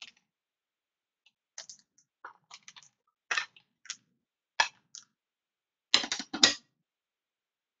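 A clear plastic magnetic card holder being handled: a run of light clicks and taps, with a couple of louder clacks about six seconds in.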